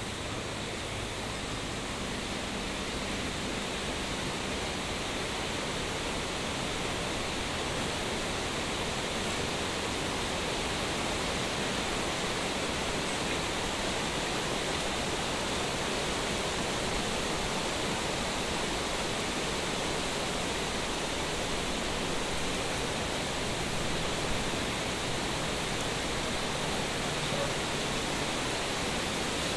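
Steady, even rushing noise like static or running water, with no clear pitch or rhythm, holding the same level throughout.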